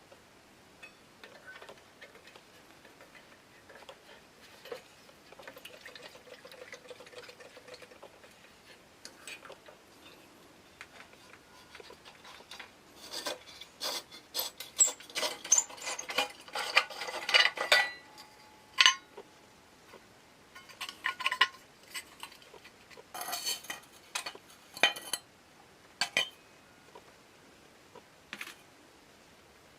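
Metal parts of a Coleman Northstar gasoline lantern clinking, rattling and scraping as it is taken apart by hand. A busy cluster of clinks comes in the middle, followed by one short ringing note.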